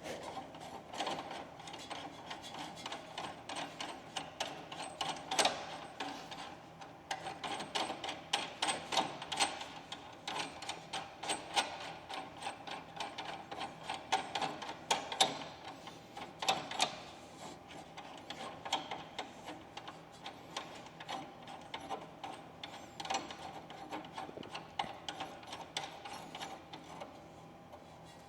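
A nut being run down a length of all-thread rod with washers, making quick irregular runs of small metallic clicks and ticks.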